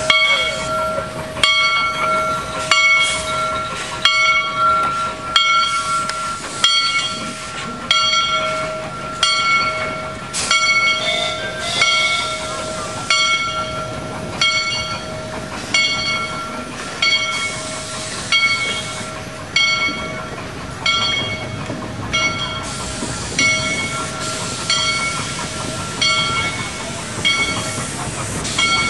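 Shay geared steam locomotive working slowly, its exhaust chuffing in an even, regular rhythm of beats. A steady high-pitched tone runs under the chuffs.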